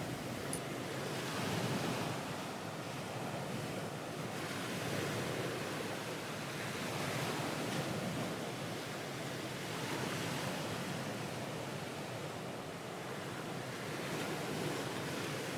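Ocean waves washing ashore, a steady surf that swells and eases every few seconds, added as a background sound bed.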